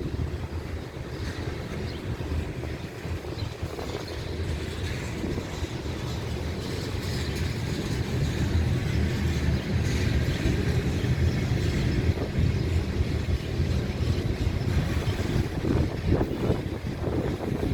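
Freight train rolling past: a steady rumble of wheels on the rails that swells a little after the middle, with a few faint clacks near the end.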